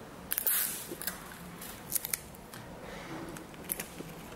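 Adhesive tape pulled off a roll with a brief hiss about half a second in, then a few sharp clicks and light rustles as the tape is pressed down onto a folded paper stand.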